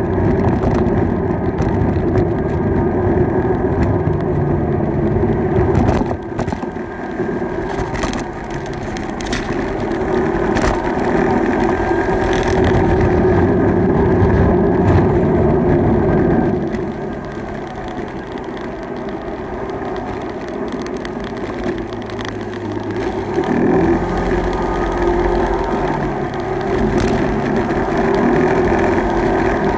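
Wind and road noise of a bicycle ridden along a tarmac lane, picked up by a handlebar-mounted phone, with scattered clicks and knocks from bumps. The noise drops for several seconds past the middle, then picks up again.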